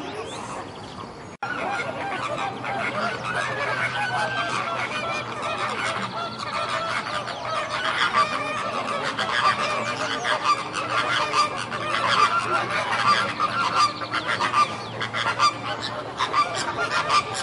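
A flock of flamingos calling, many honking, goose-like calls overlapping. The sound cuts off sharply about a second in, then picks up again and grows busier and louder.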